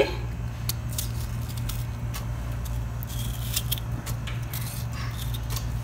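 Kitchen knife cutting a tomato into coarse chunks over a plastic hand-blender beaker, with small clicks and soft scrapes as the blade works and the pieces drop in. A steady low hum sits underneath.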